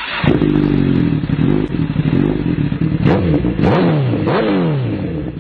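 Motorcycle engine revving. It runs fairly steadily at first, then gives about three throttle blips past the middle, its pitch dropping and climbing each time, and fades out near the end.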